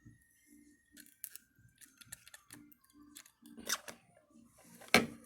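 Small clicks and scrapes of hands and a tool working inside an opened iPhone 6 Plus as the battery's adhesive strips are pulled and the battery comes loose, with a sharper click about five seconds in.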